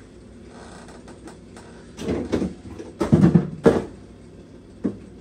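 A few knocks and rattles, as of things being handled in the kitchen: one cluster about two seconds in and a louder one about three seconds in, then a single click near the end.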